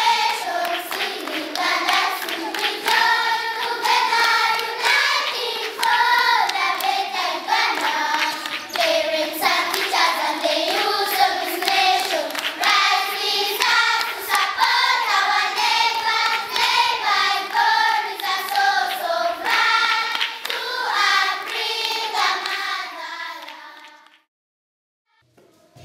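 A group of children singing together in chorus, accompanied by hand clapping; the singing cuts off suddenly near the end.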